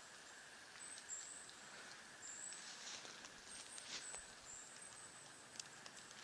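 Quiet woodland ambience: a faint steady hiss with scattered light ticks and a few brief, faint high chirps.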